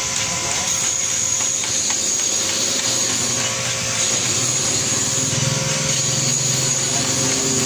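Electric bench grinder running steadily with a high whine, a steel toolbit being ground against its wheel.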